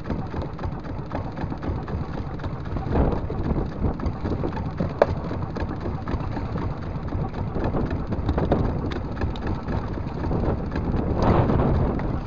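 Wind and choppy sea around a small outrigger fishing boat: a steady noisy rumble with water sloshing against the hull, surging louder twice, and a sharp knock about five seconds in.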